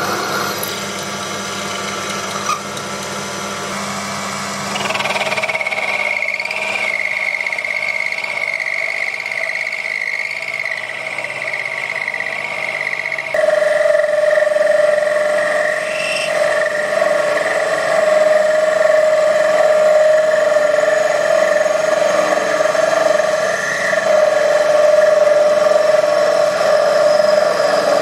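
Proxxon PD 250/e mini lathe running while a twist drill held in the tailstock chuck bores a through-hole in a spinning metal nut blank, with a steady pitched whine that strengthens about five seconds in. About thirteen seconds in it switches abruptly to a parting tool cutting into the spinning stock, a louder steady tonal whine.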